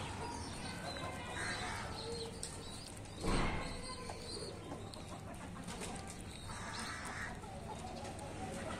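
Chickens clucking a few times, with a short, loud burst of noise about three seconds in.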